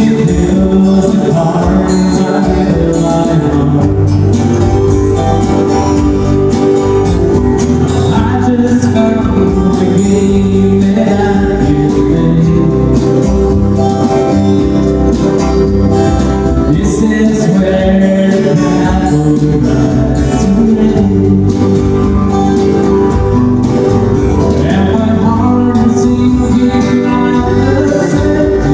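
Live country song: a man singing over a strummed acoustic guitar, loud and steady.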